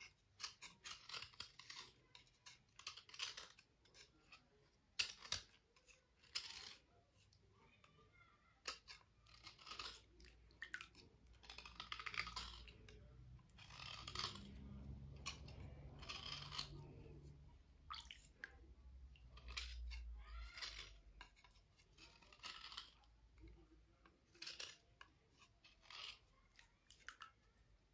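Slate cubes being cleaned: a run of short, irregular dry scratching and scraping strokes against the stone, with a few dull low bumps from handling about halfway through.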